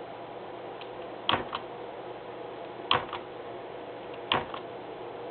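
Short sharp clicks in pairs, two close together, repeating evenly about every second and a half, over a faint steady hum.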